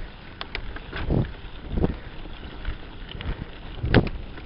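Wind buffeting a bike-mounted camera's microphone as a mountain bike rolls along a bumpy dirt singletrack, with the bike knocking and rattling sharply over bumps several times, most loudly near the end.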